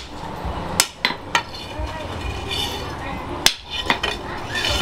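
Hand hammer striking red-hot leaf-spring steel on a steel post anvil while forging a knife blank: four sharp metallic blows at uneven spacing, two close together about a second in and two more near three and a half seconds.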